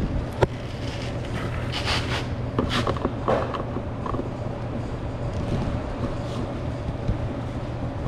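Screws being worked out of a car's plastic interior door trim. There is a sharp click about half a second in, then short scraping, creaking bursts around two and three seconds in, over a steady low hum.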